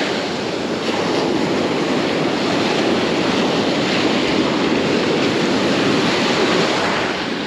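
Ocean surf washing steadily on the beach, with wind buffeting the microphone.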